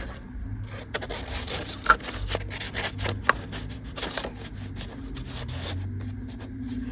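Paper pages and pockets of a handmade traveler's notebook being handled, rubbing and rustling irregularly, with a couple of sharp ticks about two and three seconds in.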